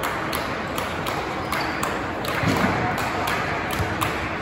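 Gymnasium noise during a volleyball match: a steady hubbub of players and spectators, dotted with short high squeaks of sneakers on the court floor.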